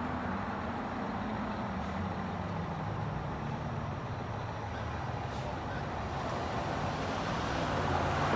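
A diesel fire engine idling with a steady low hum while cars drive through the intersection, their road noise growing louder near the end as they come close.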